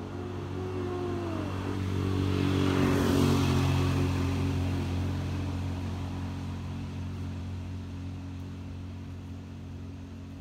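A motor vehicle's engine passing by, growing to its loudest about three seconds in and then slowly fading away.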